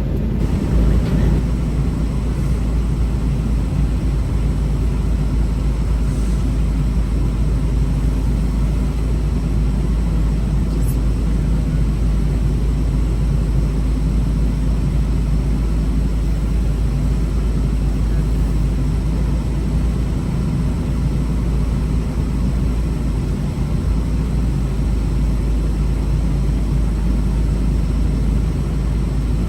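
Steady low rumble of a semi-truck's engine and cab noise heard from inside the cab, unchanging throughout.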